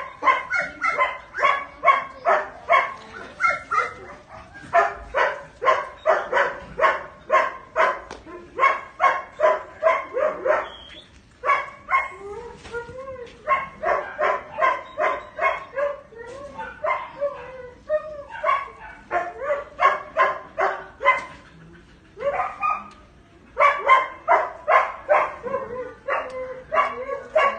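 A dog barking over and over in quick runs of about four barks a second, each run lasting a few seconds, with short pauses between them.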